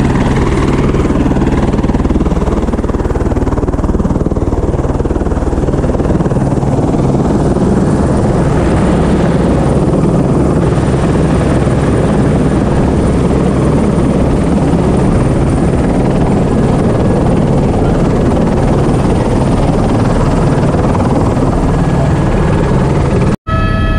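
Single-rotor helicopter running on the ground with its main rotor turning: a loud, steady engine-and-rotor din that cuts out for an instant near the end.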